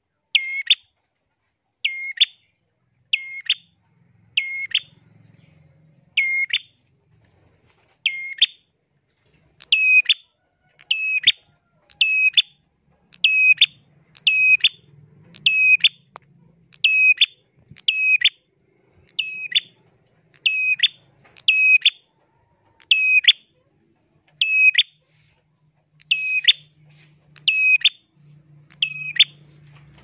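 A caged prenjak calling over and over in vigorous 'gacor' form: one sharp, shrill note roughly once a second, each a quick upward-and-down flick in pitch.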